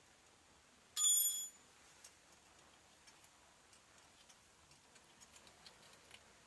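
A single bright metallic clink about a second in, ringing for about half a second, like a metal tool or part being struck or set down; faint light ticks and taps follow.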